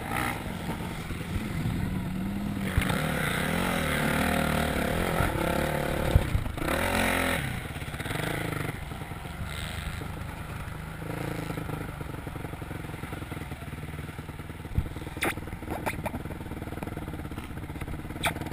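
Motocross bike engine running hard, rising and falling in pitch as the rider throttles on and off and shifts through the gears. A few sharp clicks near the end.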